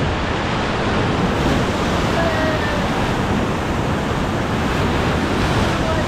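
Whitewater rapids rushing around an inflatable raft, a loud, steady, dense rush of churning water close to the microphone.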